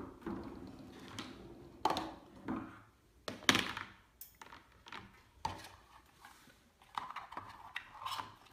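Wire dish rack and plastic parts being handled on a wooden table: irregular knocks, clicks and rattles as the metal rack is set onto a plastic drip tray and a plastic utensil cup is fitted to its side, with the loudest knock about three and a half seconds in.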